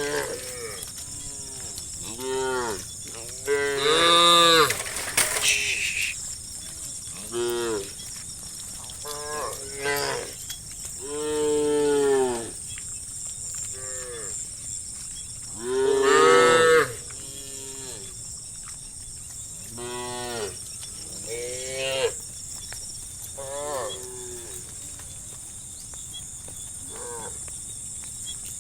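A herd of cows mooing, one call after another and sometimes overlapping, with long, loud moos about four, twelve and sixteen seconds in.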